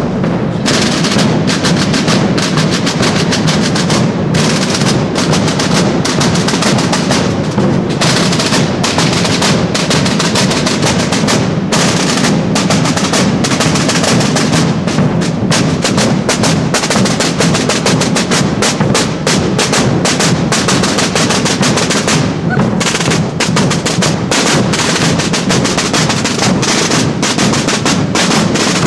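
Holy Week marching drum band playing snare drums and large rope-tensioned bass drums together: a dense, unbroken pattern of snare strokes over bass drum beats.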